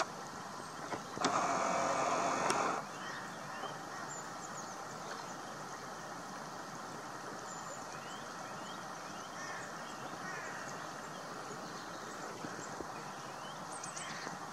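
Steady outdoor background hiss with faint, scattered bird chirps, broken near the start by a louder rushing noise lasting about a second and a half.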